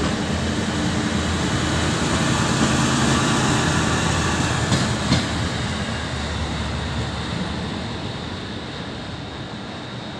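Alstom Minuetto diesel railcar moving through the station, its diesel engines droning steadily over wheel and track noise. Two short sharp knocks come about halfway through. The train then draws away and slowly fades.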